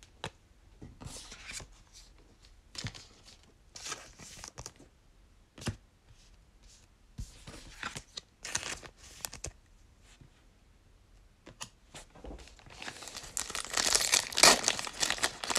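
Scattered soft rustles of trading cards and packaging being handled, then from about three quarters of the way in a trading-card pack's plastic wrapper crinkled and torn open, the loudest sound.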